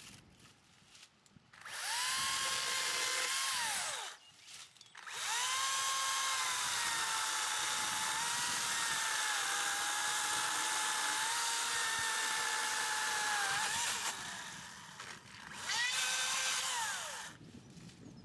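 A power tool's motor whining at high speed in three runs, spinning up and winding down each time. The longest run lasts about nine seconds, and its pitch sags slightly as the tool works.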